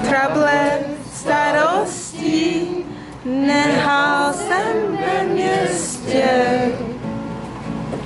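A woman singing a Czech Christmas song, accompanied by two acoustic guitars, with short breaks between phrases.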